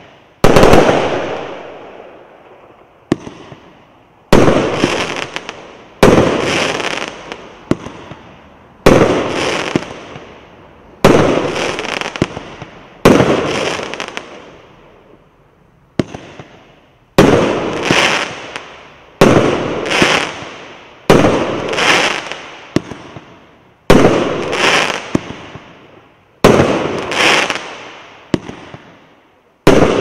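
A 50-shot consumer fireworks cake of 0.8- and 1.2-inch shots firing steadily, about one shot every two seconds. Each is a sharp bang followed by a fading crackling tail.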